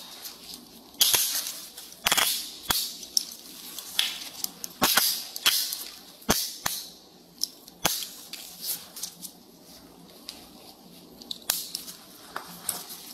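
Chain handcuffs being fitted and adjusted on a person's wrists: a series of irregular sharp metal clicks from the ratchets, with rattling of the chain and cuffs.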